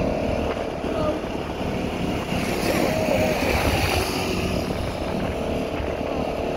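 Motorcycle ride heard from the passenger seat: the engine running steadily under heavy road and wind noise, with other motorcycles passing in traffic.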